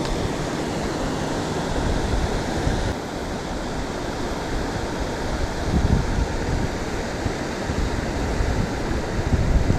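Steady rush of falling and flowing river water at a waterfall, with wind buffeting the microphone in low gusts.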